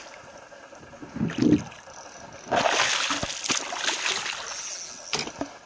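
Water splashing as a hooked mulloway thrashes beside a kayak while it is landed, with a spell of heavy splashing lasting about two and a half seconds from midway. A low thump comes about a second in, and a sharp knock near the end.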